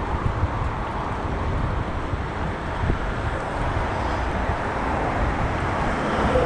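Steady rush of wind on the microphone and road noise while riding an e-bike along a street with car traffic.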